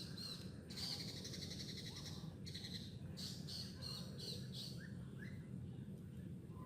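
Birds calling: a string of high chirps and quick trills over the first five seconds or so, over a steady low rumble.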